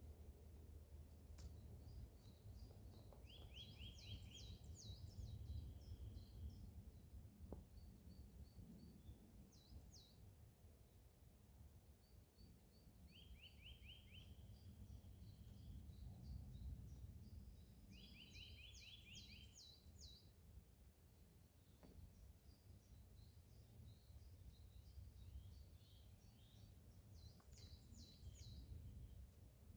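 Great tits giving alarm calls: faint, rapid chattering runs of high notes that come again and again in short bursts. They are scolding at a person they have spotted, a warning to everything nearby.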